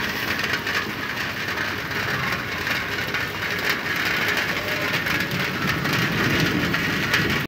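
Heavy rain pouring down: a steady hiss full of many small close drop impacts.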